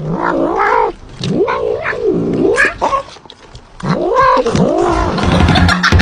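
A domestic cat yowling and meowing insistently in a series of long calls that rise and fall in pitch, with short pauses between them, as it begs for a person's food.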